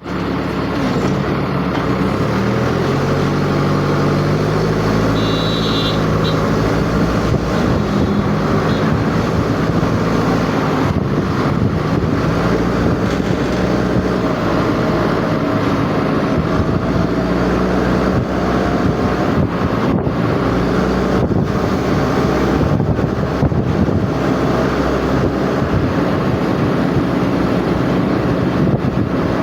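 A vehicle's engine running on the move, its pitch rising as it speeds up over the first several seconds, then holding steady.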